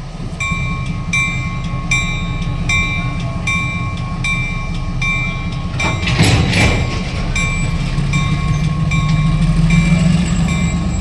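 Diesel locomotive running with a steady low rumble while its bell rings in a regular rhythm, about one and a half strikes a second. A brief hiss comes about six seconds in.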